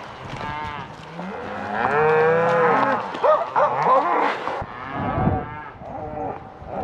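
A herd of cows and calves bawling, several long moos overlapping one another and sliding up and down in pitch.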